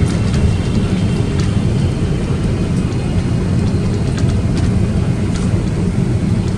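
Steady low rumble inside the cabin of a Boeing 777-300ER on approach, the sound of airflow and its GE90 engines, with a few faint ticks.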